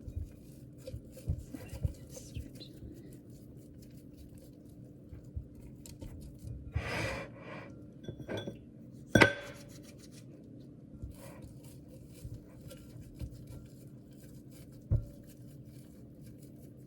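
Hands stretching and folding sourdough dough in a bowl, with soft rubbing and sticky handling sounds. The bowl clinks and knocks against the counter, sharpest about nine seconds in and again near the end.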